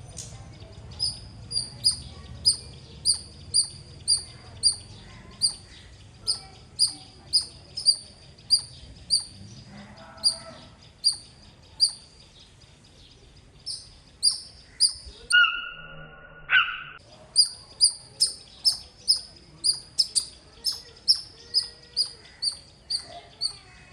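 A squirrel chirping: a fast, regular series of sharp, high-pitched chirps, about two a second. The series breaks off for a few seconds near the middle, where a lower two-note call sounds, then resumes.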